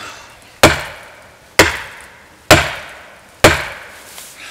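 Fiskars 28-inch chopping axe deliberately overstruck against a hardwood tree trunk, so its polymer handle just behind the head hits the wood. Four sharp strikes land about a second apart, each dying away over most of a second. The handle takes the blows without damage.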